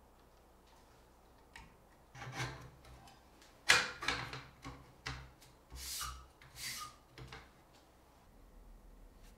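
Hands handling a laser engraver's metal gantry and braided cable sleeve: a series of short rubbing and sliding sounds, with one sharp click a little before halfway as the loudest.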